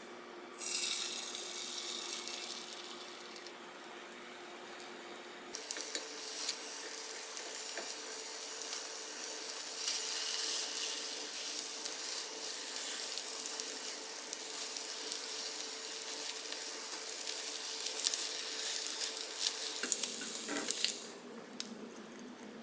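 Beaten egg sizzling in a hot, oiled rectangular tamagoyaki pan. There is a short sizzle about a second in, then a louder, steady sizzle from about five seconds in, dotted with light clicks of chopsticks against the pan as the omelette is rolled. The sizzle dies away near the end.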